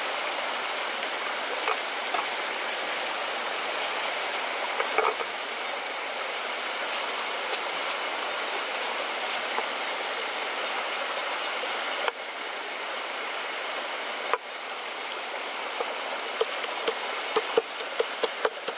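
Shallow stream running over rock ledges, a steady rush of water. Near the end a wooden pestle pounds garlic and chillies in a wooden mortar, quick knocks about three a second.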